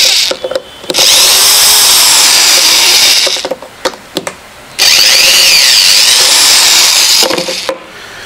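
A cordless drill-driver runs in two bursts of about two and a half seconds each, the first about a second in, backing out the small screws that hold a washing machine's water inlet valve together. Light clicks fall between the bursts and after them.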